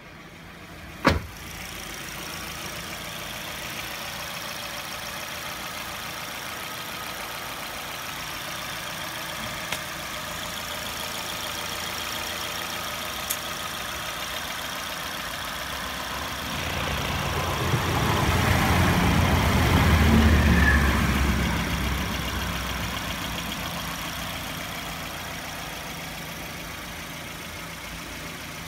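Suzuki M15A 1.5-litre four-cylinder petrol engine in a Suzuki Ignis idling steadily, being run to show the condition of the used engine. It is revved up once, swelling about 17 seconds in, and settles back to idle a few seconds later. A single sharp knock comes about a second in.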